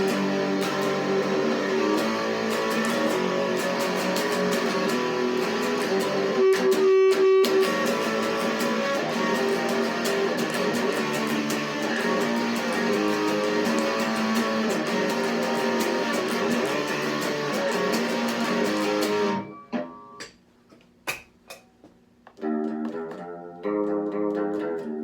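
Electric guitar played through an amplifier: chords and notes picked continuously, with one louder passage about seven seconds in. The playing stops for a couple of seconds, leaving a few faint clicks, then starts again near the end.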